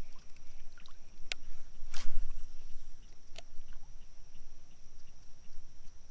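A paddle stroke through the water as a stand-up paddleboard is paddled along, with a swish about two seconds in and two sharp knocks, one before it and one after.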